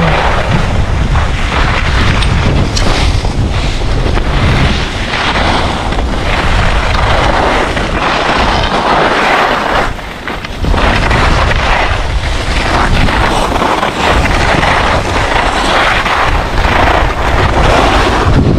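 Heavy wind rushing over an action camera's microphone while skiing downhill at speed, with the hiss and scrape of skis on hard-packed snow surging through the turns. It drops briefly about halfway, then rises again.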